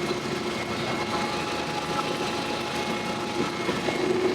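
Forklift engine running steadily, with a constant hum over the engine noise. It carries an odd noise that the mechanic suspects is an intake manifold leak or the starter grinding against the flywheel.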